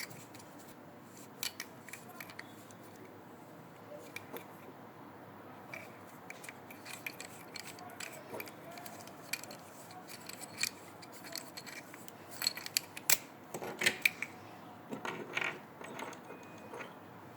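Small plastic and metal parts of a hardened fiber-optic connector and mini adapter being handled and fitted together: scattered sharp clicks and light rattles, busiest about twelve to sixteen seconds in.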